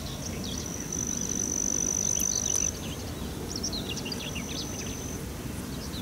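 Outdoor ambience: a steady high-pitched insect trill, louder for a second or two near the start, with scattered short bird chirps over a low background rumble.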